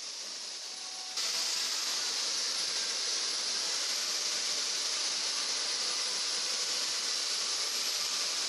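Steady hissing, rushing noise that steps up in loudness about a second in and then holds even.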